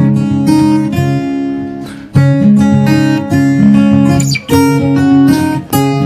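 Background music: strummed acoustic guitar playing a rhythmic chord pattern.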